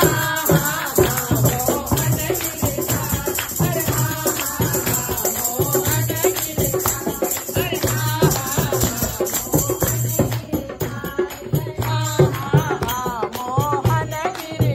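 Group of women singing a Kumaoni Holi song together, with hand-clapping and jingling percussion keeping time.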